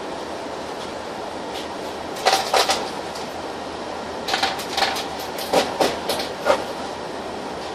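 Inside a Mercedes-Benz Citaro city bus under way: steady drive noise with sharp rattles and knocks from the bus's fittings, one cluster about two seconds in and a longer run of them from about four to six and a half seconds.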